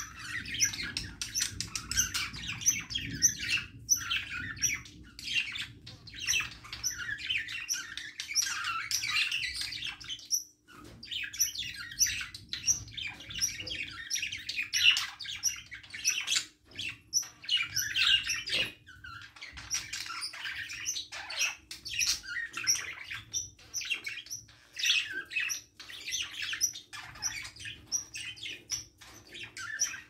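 A flock of budgerigars chattering and warbling: many quick, overlapping high chirps and squawks with hardly a pause, over a faint steady hum.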